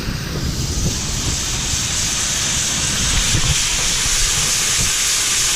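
Steady hissing rush at a grain bin being filled with dried corn, building over the first second or two and then holding, with a low irregular rumble underneath.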